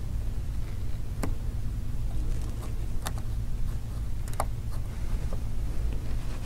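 A few small, sharp clicks of a precision Phillips screwdriver's tip against the tiny screws and metal shield inside an iPhone 5, over a steady low hum.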